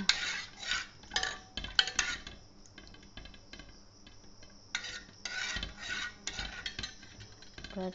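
A steel spoon stirring milk in a metal pot, scraping and clinking against the pot's sides and bottom. It comes in two spells with a quieter pause in the middle. The milk is being stirred to cool it to lukewarm before the yogurt starter goes in.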